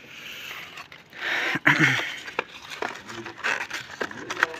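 A plastic bucket and a crusted basin being handled, with knocks, clicks and scraping. About a second in there is a short rush of noise.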